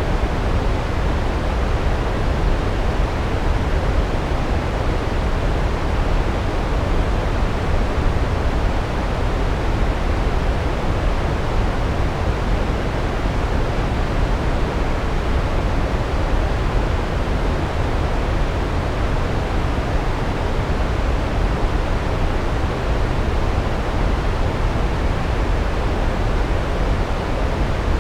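A large waterfall's steady roar of water cascading down rocks, a deep, even rush with no breaks.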